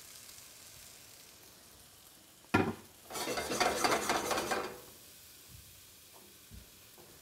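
Cashew cream sauce and artichokes sizzling as they are stirred and scraped in a hot frying pan. A sharp knock comes about two and a half seconds in, and a loud stretch of stirring follows for about a second and a half before it goes quiet.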